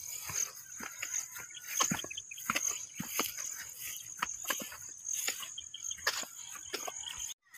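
Insects, crickets by their sound, chirring steadily at a high pitch, with irregular soft footsteps on grass and soil.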